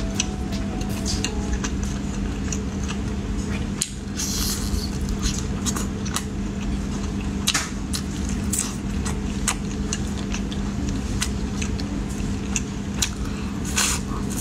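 Close-miked chewing and biting of skewered seafood, with many wet mouth clicks and a few longer hissy sucking noises, the clearest about four seconds in, over a steady low hum.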